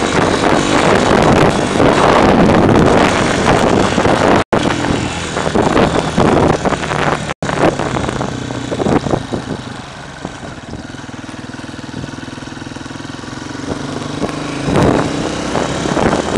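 Small dirt bike engine running under throttle as the bike is ridden, loud for most of the first ten seconds, then easing to a quieter, steadier note for a few seconds before picking up again near the end. The sound cuts out for an instant twice.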